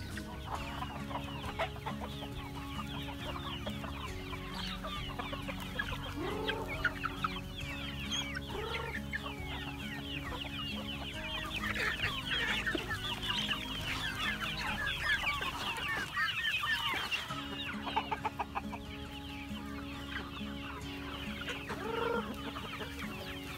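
A large flock of Zampen native chickens clucking and calling around a feed bucket, with many short overlapping calls, busiest in the middle, and a few lower rising squawks now and then.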